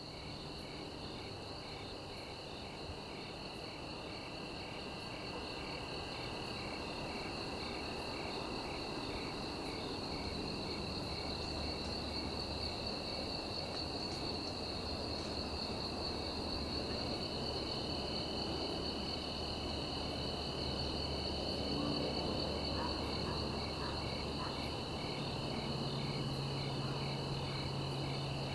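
Insect chorus: several steady high-pitched trills with one regularly pulsing call among them, over a low hum, slowly growing louder.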